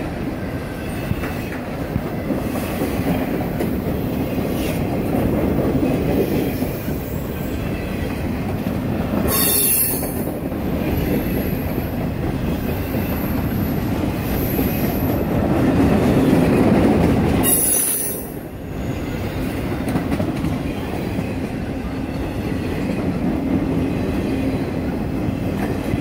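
Freight train boxcars rolling past close by: a steady rumble and rattle of steel wheels on the rails, with two brief high-pitched screeches from the wheels, about a third and about two-thirds of the way through.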